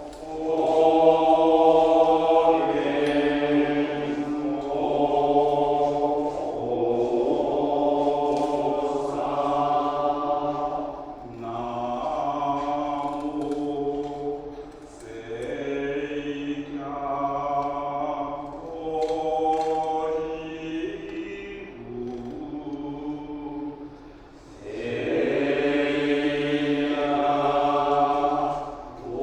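Buddhist monks chanting together, holding long notes that step to new pitches every few seconds, with brief breaths between phrases.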